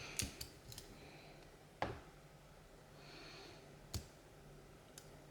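Small sharp clicks of a lock pick and tension tool working the pins of a Mul-T-Lock padlock: a quick few in the first second, then single clicks about two, four and five seconds in.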